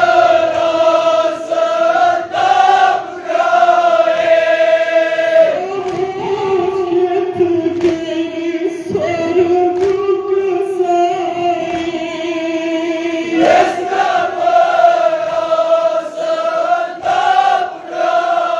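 A crowd of male mourners chanting a Shia noha lament in unison, drawing out long held notes that break off and begin again every few seconds.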